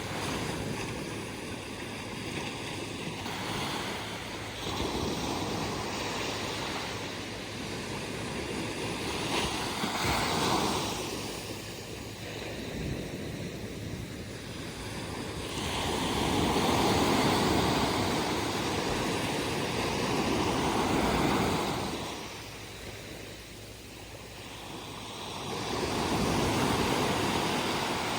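Atlantic Ocean waves breaking and washing up the beach, the surf swelling and ebbing in several surges, the longest and loudest about two thirds of the way through.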